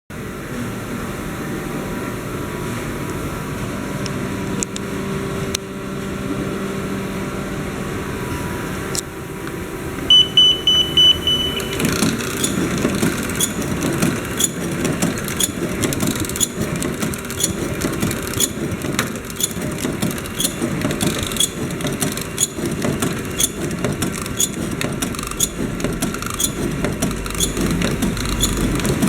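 Omori horizontal flow wrapper (pillow packaging machine): a steady machine hum, then a short high beep about ten seconds in, after which the wrapper starts cycling with a rhythmic mechanical clatter of about two clicks a second.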